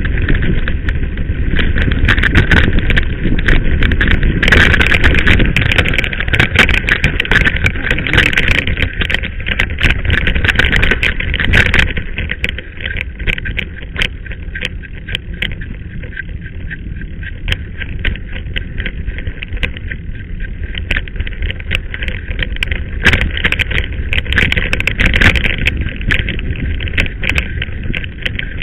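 Mountain bike clattering and rattling over a rough dirt track, with wind rumbling on the microphone. It is louder and busier for about the first twelve seconds, then calmer.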